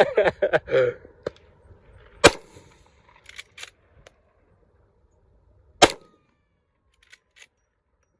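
Two gunshots about three and a half seconds apart, each a single sharp crack, with a few faint clicks between and after them.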